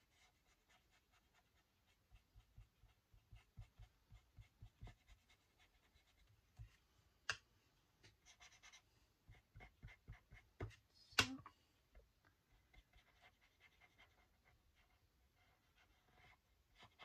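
Faint scratching and dabbing of a small paintbrush colouring paper with stamp ink, in many short strokes, with two sharp clicks about seven and eleven seconds in.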